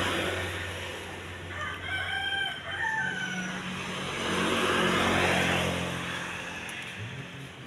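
A rooster crowing once, about two seconds in, over the noise of road traffic that swells as vehicles pass, with a steady low hum underneath.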